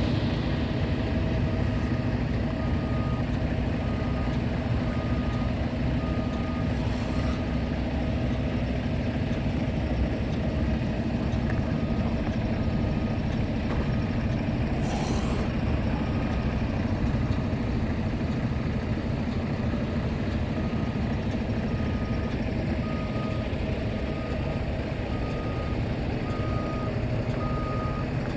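A vehicle engine running steadily, with runs of short, evenly spaced beeps about one and a half a second, like a reversing alarm. A brief hiss comes about halfway through.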